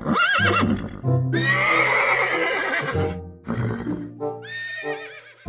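Whinnying calls of a horse-like animal, with a short call at the start and a long call of falling pitch lasting nearly two seconds in the middle, over background music.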